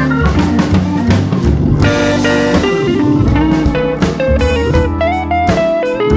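Background music: a guitar tune over a drum kit with a steady beat.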